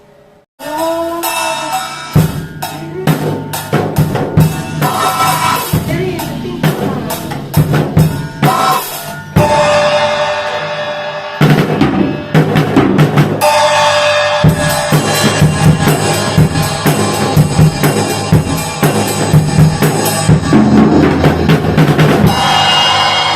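Drum kit played loudly with an Armada Achilles AXL cymbal set: a steady beat on bass drum and snare, under cymbal crashes and wash. It starts abruptly about half a second in.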